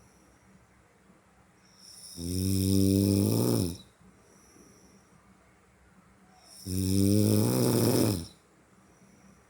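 Snoring: two long, low, buzzing snores, each about a second and a half, coming about four and a half seconds apart in a slow, even rhythm.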